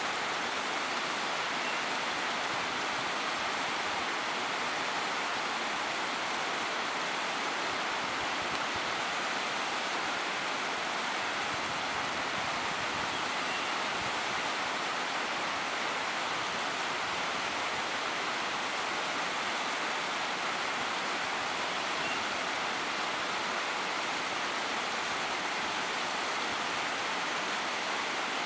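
River water rushing over rapids and around rocks: a steady, even rush.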